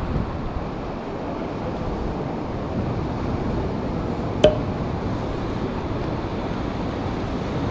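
Steady rushing noise of wind and river water. A single sharp click with a short ring about halfway through.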